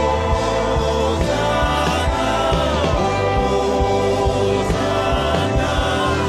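Gospel worship music: sustained chords over a steady bass, with singing voices.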